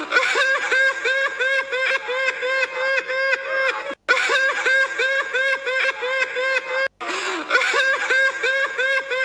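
High-pitched laughter, an even rapid 'ha-ha-ha' of about three beats a second. It cuts out for an instant twice and starts again the same way.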